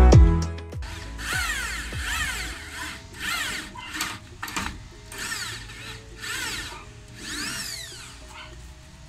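Handheld power drill run in short trigger pulls, about six times, its motor whine rising and falling with each pull.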